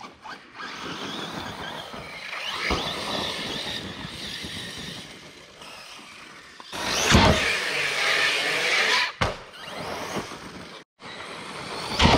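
Electric RC basher trucks running on a dirt track: a motor and drivetrain whine that rises and falls with the throttle, tyres scrabbling on dirt, and several sharp thuds from landings. The loudest burst comes about seven seconds in.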